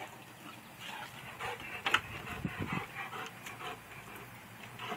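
A dog making faint, scattered small noises, with a sharp click about two seconds in.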